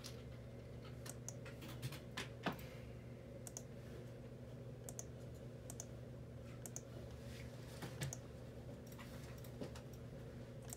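Faint, irregular keystrokes on a computer keyboard, a few scattered clicks at a time, over a steady low hum.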